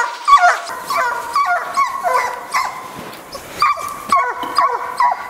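Russian hounds giving tongue in full cry on a hot hare trail: a pack of overlapping yelping bays, several a second, each call dropping in pitch, easing briefly about three seconds in before picking up again.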